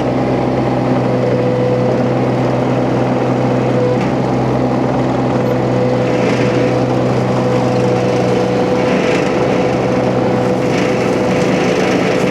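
Huayee LHY680 mini skid steer's engine running steadily, driving a hydraulic flail mulcher with hammer knives. A few short rougher stretches come as the flail chews into brush.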